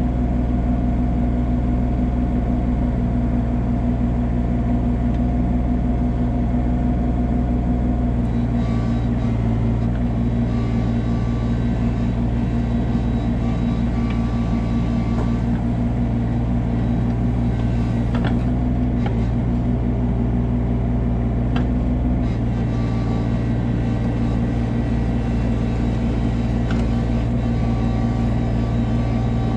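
Komatsu PC16 mini excavator's diesel engine running steadily under hydraulic load while the snow plow blade pushes wood chips. The engine note shifts slightly about eight seconds in and again a little after twenty seconds.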